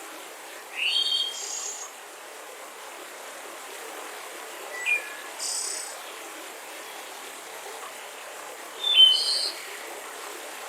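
Forest ambience: a bird calls three times, about four seconds apart, each call a short rising chirp followed by a higher buzzy note, over a steady background hiss.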